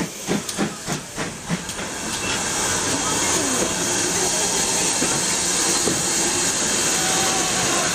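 Steam locomotive No. 1638, a GWR 1600 class pannier tank, pulling away with sharp exhaust beats about three a second that fade out about two seconds in as it passes. Then comes a steady hiss and rumble of the coaches rolling past close by.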